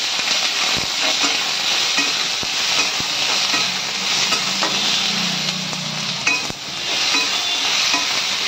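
Chopped onions sizzling in hot oil in a steel kadhai, stirred with a metal spatula. Now and then the spatula scrapes and clicks against the pan.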